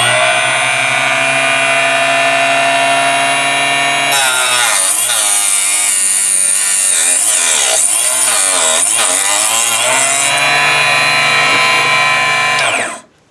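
Harbor Freight 2-inch benchtop mini chop saw running with a steady high whine. About four seconds in, its blade cuts through thin aluminum tubing and the pitch wavers and roughens under the load for about six seconds, then it runs free again and spins down near the end.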